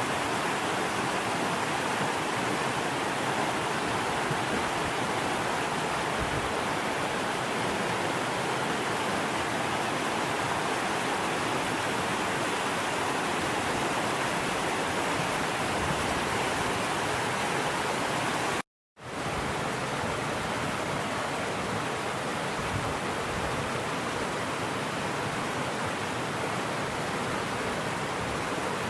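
Steady rushing of river water over rapids, an even hiss with no break except a brief dropout about two-thirds through.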